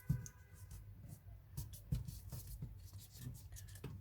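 Origami paper being folded by hand: soft crinkling and rubbing as an edge is lined up with the centre crease and pressed down, with a couple of light knocks.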